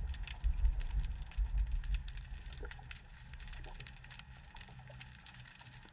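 Wind rumbling on the microphone in gusts, easing off after about two and a half seconds, with faint scattered crackling.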